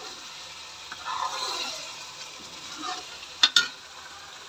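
Steel spoon stirring thick, fully roasted masala paste that sizzles in its oil in a kadhai, with a swish of the stir about a second in. Near the end the spoon strikes the pan twice in quick succession with sharp clinks.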